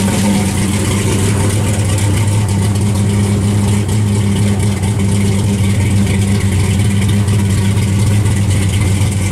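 1968 Chevrolet Chevelle SS pro street car's V8 engine idling steadily with a deep, even hum.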